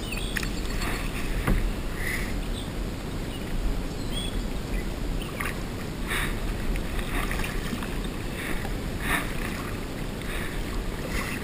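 Kayak paddling: a double-bladed paddle dipping and splashing into creek water in repeated strokes about once a second, over a steady low rumble.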